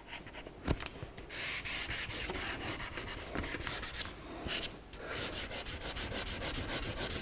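Wax crayon rubbed back and forth on drawing paper in quick scratchy strokes while colouring in. A single tap comes just under a second in, and the strokes break off briefly about five seconds in.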